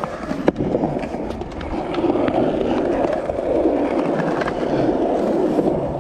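Skateboard wheels rolling over concrete in a steady rumble, with a sharp clack about half a second in.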